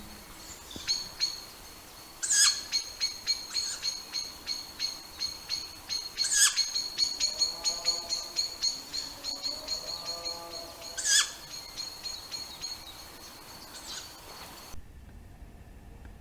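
A bird calling in a rapid run of high chirps, about three a second, with a few louder, sharper notes among them. A lower, wavering call joins in the middle, and the calling cuts off suddenly near the end.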